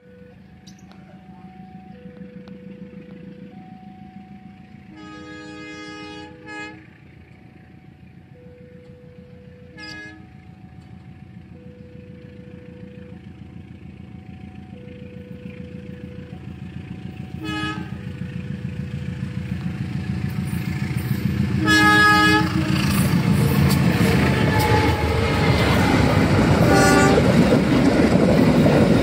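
A passenger train approaching and passing close by. Its locomotive horn sounds five times, the first blast longer and the rest short. The rumble of the train builds from about halfway through and is loud as the coaches roll past near the end, over a slow alternating two-note tone.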